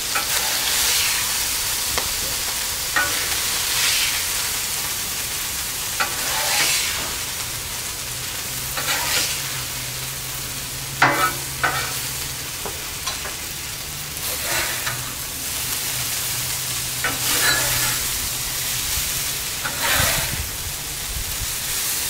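Diced chicken and stir-fry vegetables sizzling on a Blackstone flat-top gas griddle. A metal spatula scrapes and clacks on the steel cooktop every few seconds, two strikes close together about halfway through, as the chicken is tossed in with the vegetables.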